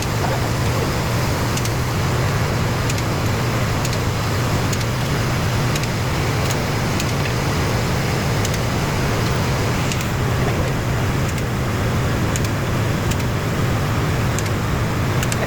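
A steady low motor drone with a few faint light clicks.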